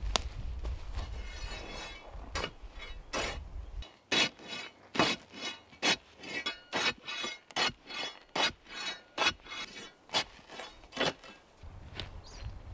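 Rope hauled through an old block-and-tackle pulley, its sheave squeaking in a run of short strokes, about two a second.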